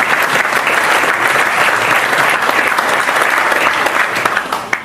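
Applause: many hands clapping in a dense, steady patter that dies away near the end.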